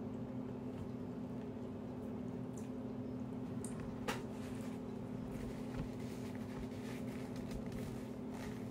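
Close, wet chewing sounds of a person eating, over a steady low hum in the room, with one sharp click about four seconds in.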